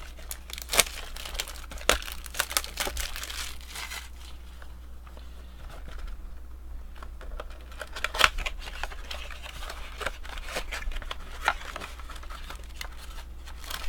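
A retail trading-card blaster box being torn open by hand: plastic wrapping crinkling and cardboard tearing in a run of sharp crackles, sparser for a few seconds in the middle, over a steady low hum.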